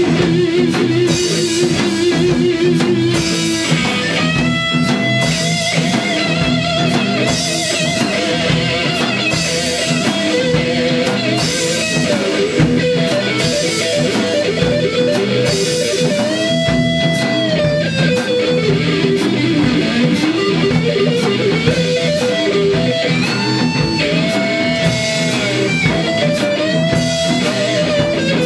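Rock jam on electric guitars with drums: a lead guitar plays long held notes with vibrato and several bends over strummed chords and steady cymbal strokes.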